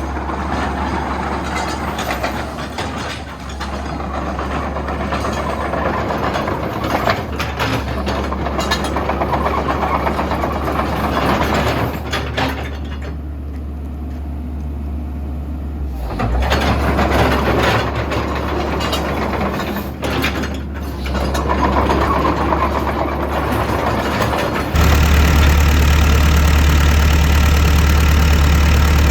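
Komatsu PC128US-8 excavator's diesel engine running with a steady low hum, under changing mechanical noise from the machine. About 25 seconds in, it turns abruptly louder and steadier.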